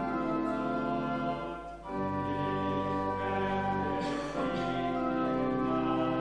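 Church organ playing sustained hymn chords, the harmony changing about two seconds in and again about four seconds in, with a short break just before the first change.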